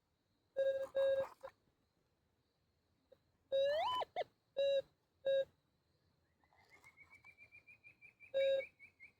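Metal detector signalling over a buried target: short low beeps, a tone that rises in pitch partway through, then a fast run of higher, evenly spaced beeps for about two and a half seconds, with another low beep near the end.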